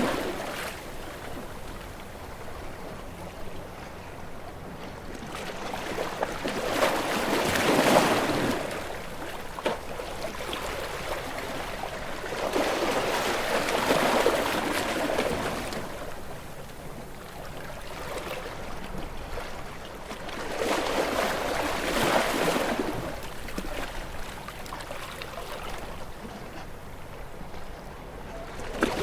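Calm ocean waves washing against rocks. The surf swells and breaks in slow surges about every seven seconds, three times, with a softer steady wash in between.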